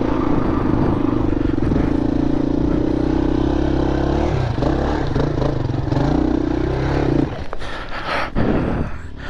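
Four-stroke single-cylinder dirt bike engine running under load on a rough trail, its note steady, then wavering up and down. About seven seconds in the engine note drops off and irregular knocks and clatter follow as the bike bounces over rocks.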